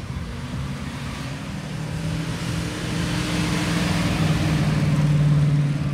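Classic Mustang V8 engines at low speed as the cars roll past. The engine note is steady and low and grows louder as a red Shelby Mustang passes close, loudest about five seconds in.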